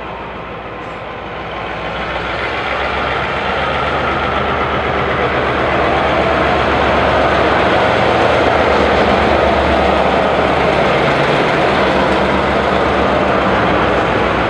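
Taiwan Railway R100-class diesel-electric locomotive (R102) running light at low speed, its diesel engine growing steadily louder as it draws alongside and passes close by.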